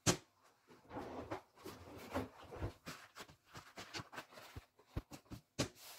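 A zucchini set down on a plastic cutting board with a sharp knock, then paper towel rustling and light knocks as the zucchini is handled and wiped, with another sharp knock near the end.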